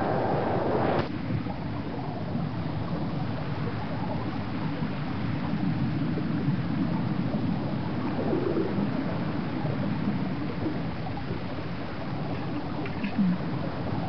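A splash about a second in, then a steady, muffled underwater rumble and gurgling as a body sinks through the sea.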